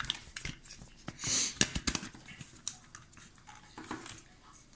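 Scattered light clicks and knocks of small parts and tools being handled on a wooden workbench, with a short hiss about a second in.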